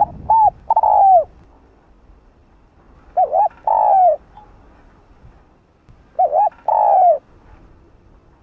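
Spotted dove (cu gáy) giving its cooing call three times, about every three seconds: each phrase is two short coos and then a longer coo that falls away at the end.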